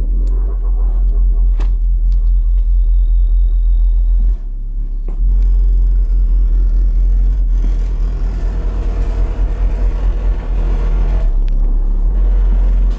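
Very loud deep bass from a car audio system's subwoofers, a low pulsing bass line that dips for about a second near the middle and then comes back.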